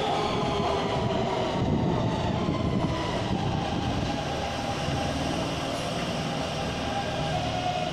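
Taipei MRT Bannan line electric train pulling into an underground station and slowing: a steady rumble of wheels on rail, with a whine that falls slowly in pitch as it brakes.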